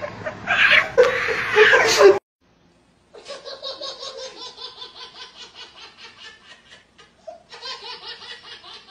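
Laughter: loud laughing that cuts off abruptly about two seconds in, then after a second of silence a long, rhythmic run of hard laughter.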